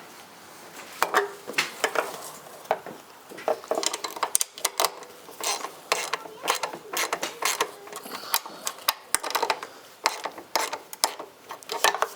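Hand ratchet wrench clicking in short, irregular runs as the license plate frame's mounting bolts are tightened.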